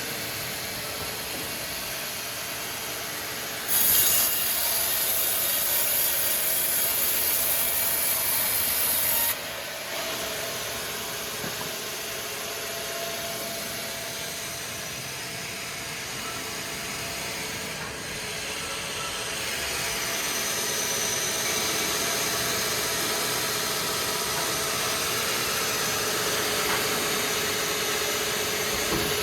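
Sawmill machinery running steadily while a saw cuts through timber. A loud, harsh high hiss starts about four seconds in and stops abruptly about five seconds later, with a steady mechanical hum underneath.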